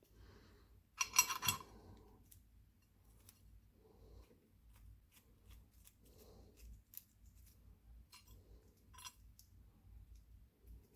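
Faint small metallic clicks and scrapes of a screwdriver backing the screws out of a MIWA PR lock body, with one louder clatter about a second in.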